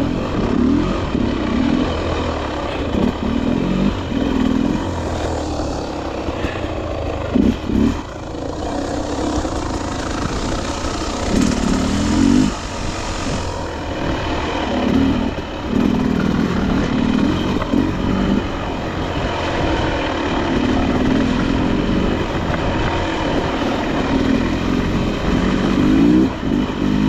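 Enduro dirt bike engine revving up and falling back over and over as the bike is ridden along a trail, with a steady rushing noise and a couple of sharp knocks about a third of the way in.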